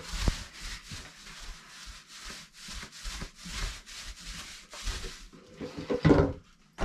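A paint brush scrubbing wood stain onto wooden floorboards, a steady run of quick back-and-forth strokes, about two to three a second, that stops about five seconds in.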